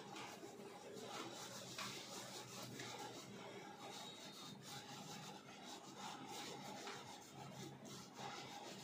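A cloth wiped over the leather of a work boot by a gloved hand: faint, irregular rubbing strokes.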